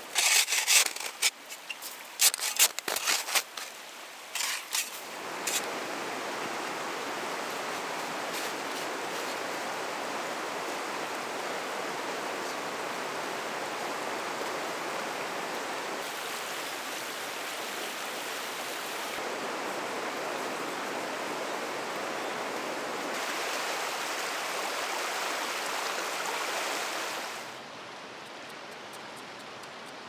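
Stream water rushing steadily over rocks, preceded in the first few seconds by a run of sharp clicks and taps, and dropping to a quieter hiss near the end.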